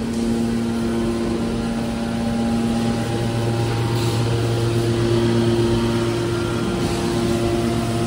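Hydraulic baler's power unit, electric motor and hydraulic pump, running with a steady hum made of several constant tones; the mix of tones shifts slightly about three seconds in.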